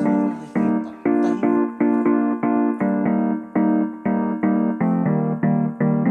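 Background music: a keyboard or piano melody in even, steadily repeated notes.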